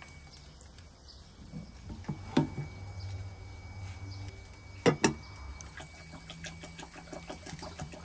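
A few sharp knocks over a low steady hum: one about two and a half seconds in and a louder pair about five seconds in, followed by faint quick ticks near the end.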